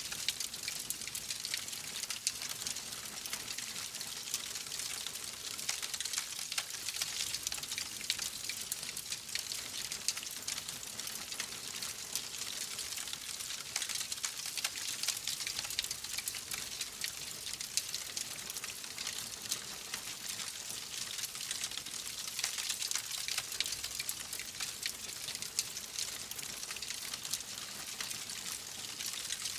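Wood fire crackling in a fireplace: a steady hiss with dense, irregular small pops and snaps throughout.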